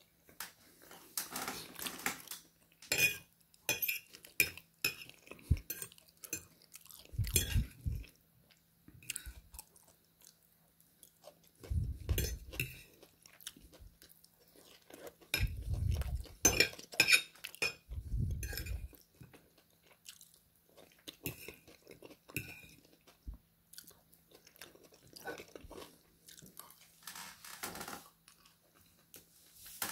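A metal fork clinking and scraping on a ceramic plate in many short strokes, with bouts of chewing of oven chips in between.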